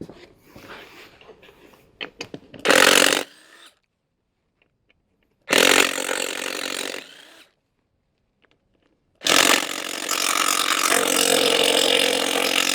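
Handheld power tool driving a 9/16 socket, run in three bursts: a short one, a longer one of about two seconds, and a long one of about four seconds near the end. Small clicks of the socket and fasteners come before the first burst.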